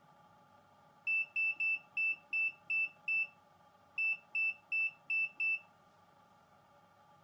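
Key-press beeps from a VEVOR ET828 multimeter as its function keys are pressed repeatedly. There are twelve short, high beeps in two quick runs: seven starting about a second in, then five more from about four seconds in.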